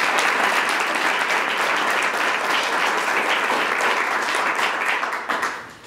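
Audience applauding steadily with many hands clapping, dying away about five seconds in.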